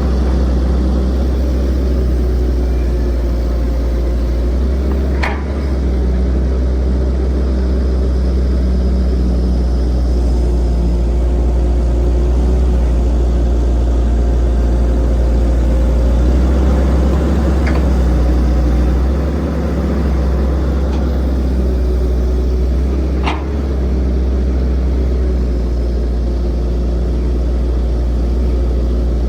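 Heavy construction machine's diesel engine running steadily with a deep rumble. Three short, sharp knocks are spread through it.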